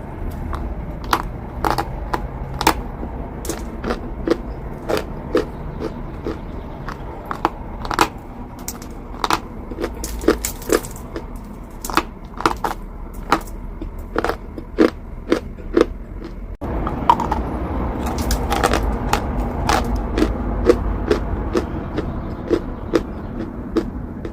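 Close-miked crunching of chalk being bitten and chewed: sharp, irregular cracks, about one or two a second, over a steady low rumble, with a brief break about two thirds through.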